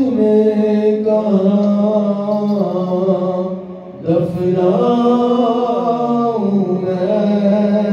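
A man's solo voice chanting an Urdu noha (a mourning lament) into a handheld microphone, with no accompaniment. He holds long melodic notes that slide between pitches, with a short breath break about four seconds in.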